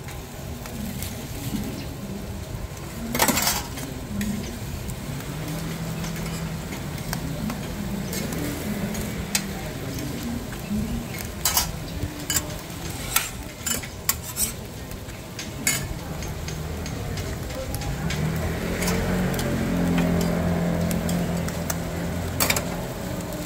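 Scallion pancakes frying on a flat steel griddle, with metal tongs and a spatula clicking and scraping against the plate, sharpest about three seconds in and in a run of clicks in the middle. A low hum swells near the end.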